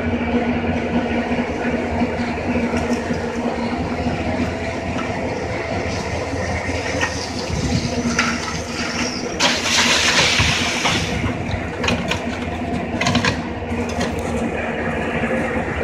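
A motor running steadily with a low hum, under clanks and scrapes of concrete work with a wheelbarrow. A loud hissing rush lasts about a second and a half near the middle.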